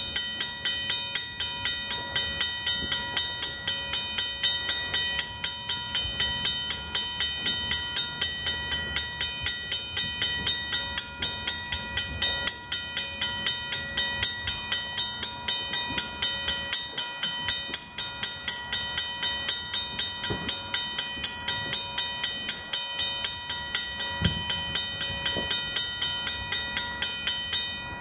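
Railroad crossing bell ringing at an even pace of about three strikes a second, each strike leaving a steady metallic ring; it stops at the very end.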